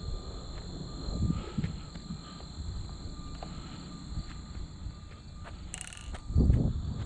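Steady high-pitched insect drone over a low, uneven rumble, with a louder low rumble about six seconds in.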